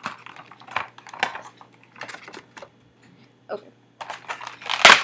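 Funko Rock Candy figure's packaging being opened by hand: an irregular string of small clicks and taps, with a louder rustle just before the end.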